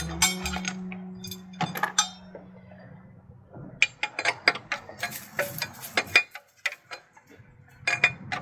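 Metal tools and parts clinking and tapping in short, irregular bursts, typical of hand tools against metal while working on a radiator and fan.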